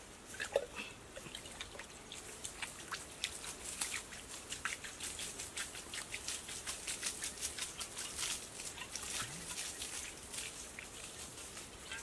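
Water poured from a clay pot splashing and pattering onto a grass-turf roof, a rapid run of small patters and drips that is densest through the middle. A single short, louder sound comes about half a second in.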